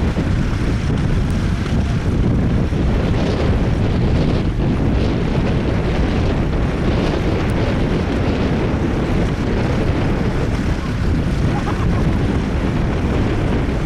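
Vintage tractor engine running steadily under load while ploughing, with wind buffeting the microphone.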